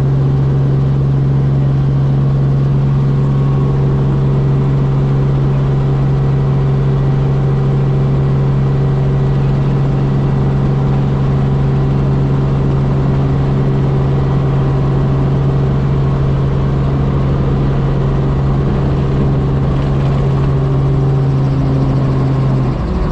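Robinson R44 Raven II helicopter in flight: a steady, loud drone of its piston engine and rotors with a strong low hum. The drone shifts abruptly just before the end.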